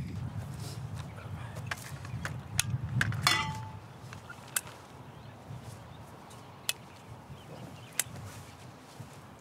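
A cooking utensil clinking against a steel pot: a run of sharp clinks over a low rumble that fades out a little before halfway, then a few isolated clicks.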